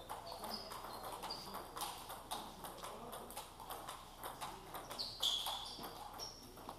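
Table tennis balls clicking against tables and bats, with several rallies going at once, and short high squeaks scattered through, the loudest about five seconds in. A murmur of voices runs underneath.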